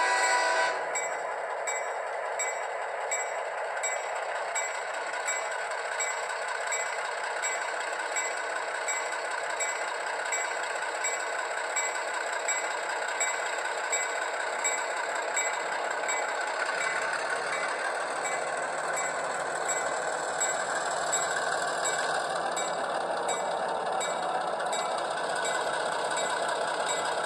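ESU LokSound sound decoder in an HO-scale Athearn Genesis GP15-1 playing diesel locomotive sounds through its small speaker. A horn blast ends about a second in; then the diesel engine runs steadily with the bell ringing at an even pace.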